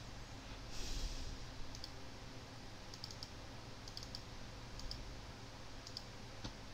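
Computer mouse clicking: a handful of soft, sharp ticks, several in press-and-release pairs, spaced irregularly over a low steady hum. A short hiss comes about a second in.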